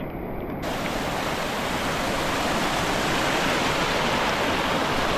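Loud, steady rush of a rain-swollen mountain stream in flood, turning fuller and brighter about half a second in.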